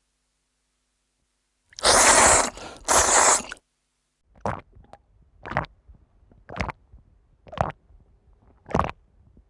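A person eating: two loud bites about two seconds in, then steady chewing, with a short sharp mouth sound about once a second.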